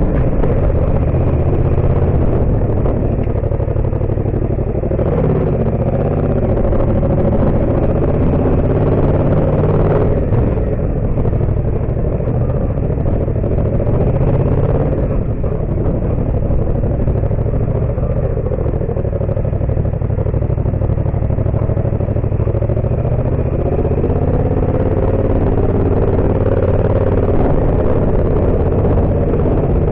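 Yamaha MT-07's parallel-twin engine running under way, its pitch shifting up and down at several points as the revs change.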